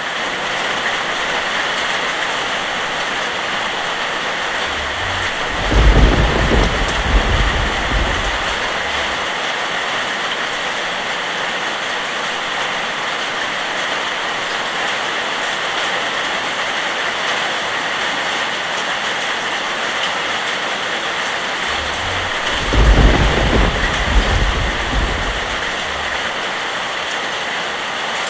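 Steady rain falling, with two rolls of thunder, one about six seconds in and another about twenty-three seconds in, each rumbling for a few seconds before fading back into the rain.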